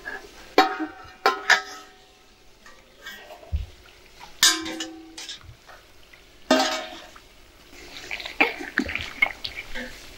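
Steel lid and brass karahi clanking together as the lid is handled and lifted off: about five sharp metal knocks over the first seven seconds, each leaving a brief ringing tone.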